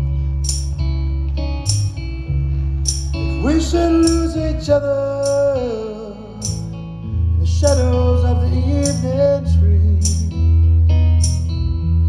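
Live rock band playing an instrumental break: an electric guitar lead with bending notes comes in about three and a half seconds in, over a steady bass and a cymbal struck about once a second.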